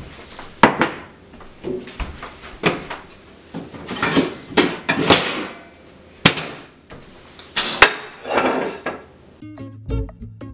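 Kitchen handling noises: a string of sharp knocks and clunks with short scraping and rustling in between, as a ceramic canister is set down on the countertop and things are taken from an upper cupboard. Acoustic guitar music starts near the end.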